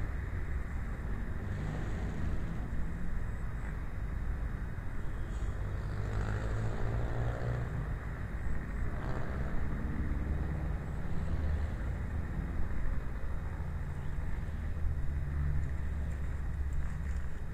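Steady low rumble of outdoor background noise picked up by a small action-camera microphone. About six seconds in, a sound glides up and then down in pitch.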